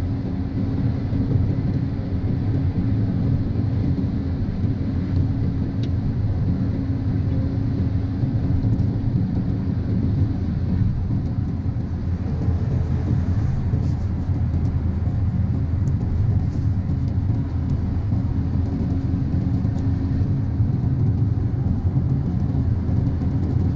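Steady low rumble of road and engine noise heard inside the cabin of a car travelling at highway speed.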